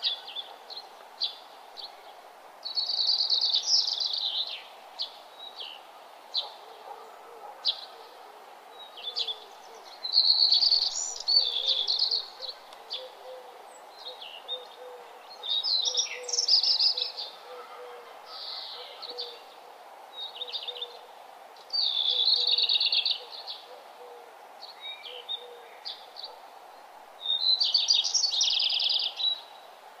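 Sulphur-crested cockatoos calling: bursts of scratchy calls a second or two long, repeated about every six seconds, with short chirps between them, over a steady faint background hiss.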